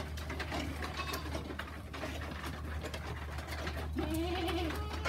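A herd of goats milling in a wooden pen, with scattered knocks and shuffling on the floorboards and a short goat bleat about four seconds in, over a steady low hum.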